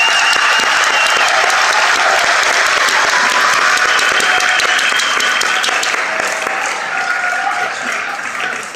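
Large arena crowd applauding steadily, dying down near the end.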